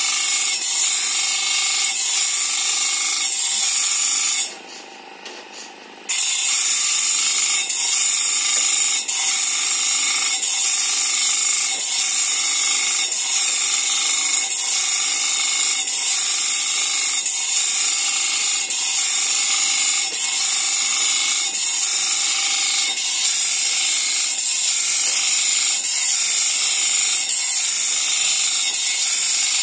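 Electric bench grinder's wheel grinding the teeth of a sawmill bandsaw blade: a loud, steady high grinding hiss with a regular beat about three times every two seconds. The grinding stops for about two seconds a little over four seconds in, then starts again.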